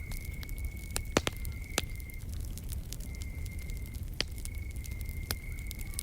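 Campfire crackling, with a few sharper pops about a second in, near two seconds and past four and five seconds, over a low rumble. An insect trills steadily on one high note, breaking off and starting again every second or two.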